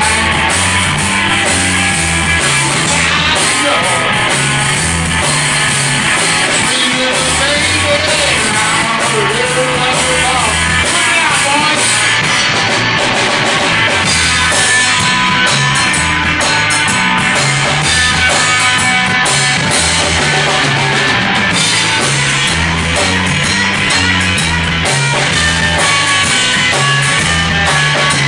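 Live blues-rock band playing loud and steady: overdriven electric guitar lead over electric bass and a drum kit, with a repeating bass line.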